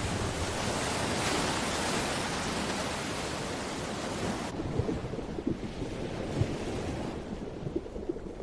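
Ocean surf washing as a steady full hiss, which cuts off suddenly about four and a half seconds in to a muffled underwater rumble with occasional short low pops.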